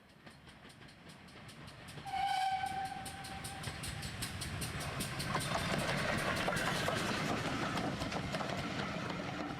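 G-scale garden railway train running: a whistle sounds once for about a second and a half, then a steady rapid rhythmic clatter of the running train that grows louder as it approaches.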